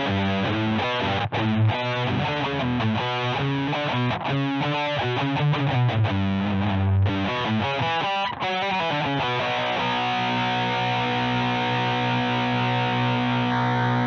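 Electric guitar played through an iSet Distortion mini pedal, heavily distorted: a rhythmic metal riff of short, choppy notes, then, about two-thirds of the way through, a chord struck and left ringing.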